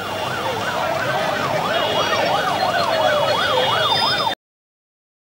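Siren yelping, its pitch sweeping rapidly up and down about three times a second, with a second, slower siren tone gliding beneath it. It cuts off suddenly near the end.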